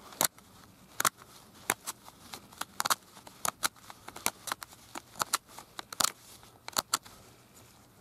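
Stone flake sawing and scraping a string nock into the end of a hardwood arrow shaft: short, sharp, irregular strokes, a couple a second, stopping about a second before the end.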